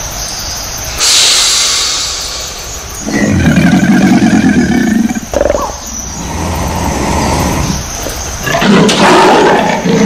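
A crocodile hissing, then giving a low, pulsing growl. Near the end a small spotted wild cat calls loudly with its mouth wide open.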